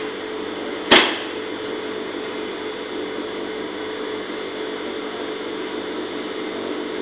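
Steady hum of a laser welding machine's water chiller running, with a single sharp click about a second in, as a switch on the machine is operated during start-up.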